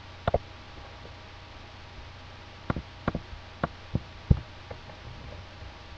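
Scattered clicks from working a computer's mouse and keyboard: a quick double click near the start, then five or six single clicks in the middle, over a steady low hum.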